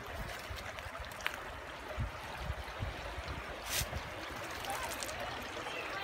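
Shallow rocky stream flowing over stones, a steady babbling rush of water, with frequent low rumbles on the microphone.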